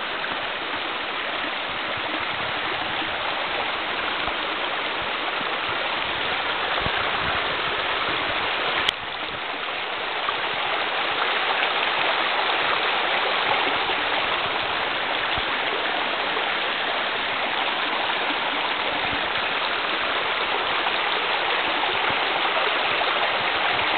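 Small snowmelt creek running over rocks: steady rushing, splashing water. A single sharp click about nine seconds in.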